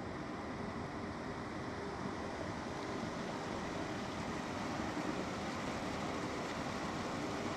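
River water running, a steady rushing sound with no breaks.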